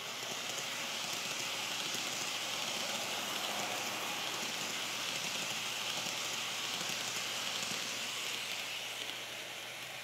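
N-gauge model electric train running past on its track: a steady rushing rattle of wheels on the rails and motor hum. It grows louder as the train comes close and fades as it moves away near the end.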